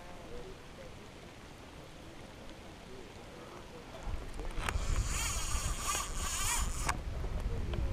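Wind rumbling on the microphone from about halfway, with a harsh hissing whirr lasting about two seconds over it.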